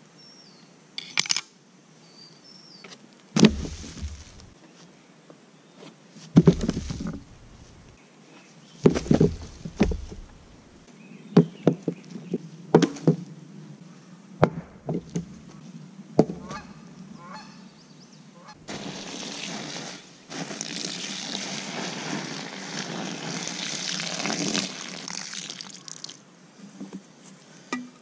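Several separate thuds and knocks over the first half, like pieces of wood being dropped. Then, from a little past halfway, about seven seconds of water pouring onto the ashes of a stone campfire ring, dousing the fire.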